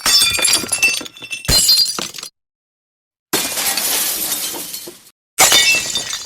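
Glass breaking four times in a row. A smash with tinkling shards comes at the start and another about a second and a half in. After a short silence a longer shattering crash fades out over nearly two seconds, and near the end a further smash rings with falling pieces.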